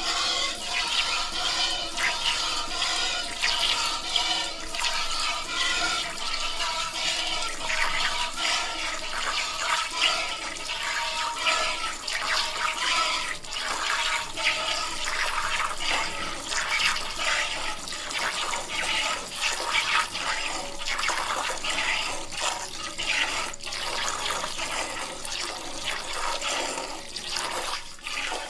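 Milk streaming into a container: a steady, watery rush.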